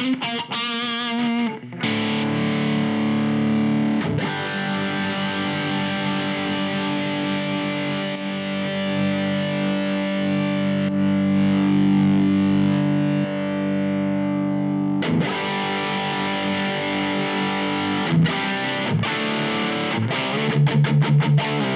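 Fano Omnis MG6 electric guitar played through an IK Multimedia X-Drive overdrive/distortion pedal on its 'Jupiter' preset, into a clean Engl Ironball SE amp, sounding distorted. A few quick notes lead into a chord that is held for many seconds. A second chord is struck about two-thirds of the way in, then a run of fast, short chugs comes near the end.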